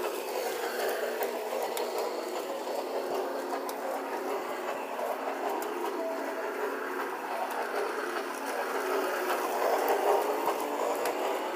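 Toy Christmas train running on its circular track: a steady motor whir with wheels rattling on the track, a little louder about ten seconds in as the train passes close by.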